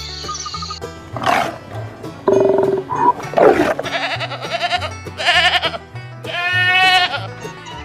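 A series of about six short animal calls one after another, the last a longer wavering call near the end, over background music with a repeating bass line.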